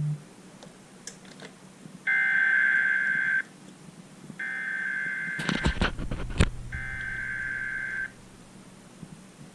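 Emergency Alert System SAME header: three bursts of shrill warbling digital data tones, each a little over a second long with about a second between them, sent by a TFT EAS encoder relaying a Required Monthly Test. A cluster of loud crackling clicks cuts across the second burst.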